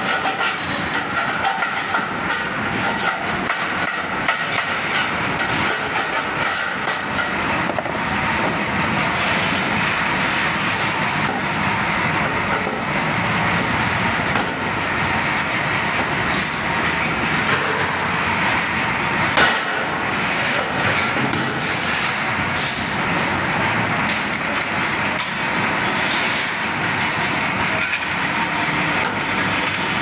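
Steady industrial din with scattered light metallic clicks and clanks as a sheet-steel cable tray is cut with tin snips and bent by hand. One sharper knock comes about two-thirds of the way through.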